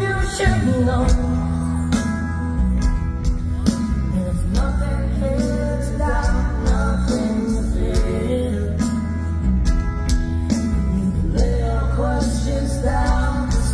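Live rock band playing: a male lead vocal over electric guitar, bass guitar, keyboard and drums, with the drums hitting steadily.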